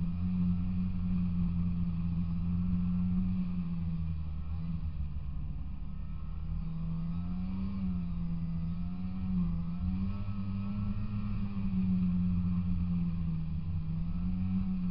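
Polaris Indy 340 snowmobile's two-stroke engine running under way, its pitch wavering up and down with the throttle, over a low rumble.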